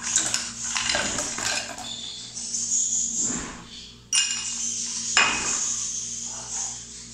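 Ice cubes clattering as they are tipped from a plastic tub into a jar of lime water, followed by a couple of sharp knocks about four and five seconds in.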